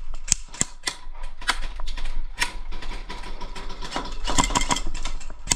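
Airsoft gunfire: an irregular series of sharp cracks and clicks of shots and BBs striking, with a quick cluster about four seconds in.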